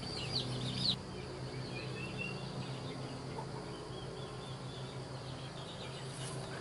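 Quiet outdoor ambience with a few high, quick chirping bird calls in the first second and a couple of fainter calls about two seconds in, over a low steady hum.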